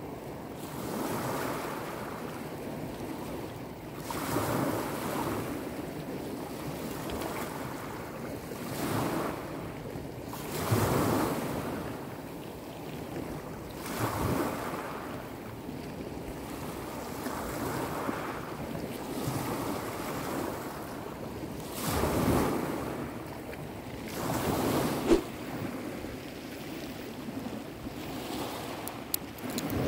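Small waves washing in over a shingle beach, a rushing hiss that swells and fades every few seconds. A single sharp click near the end.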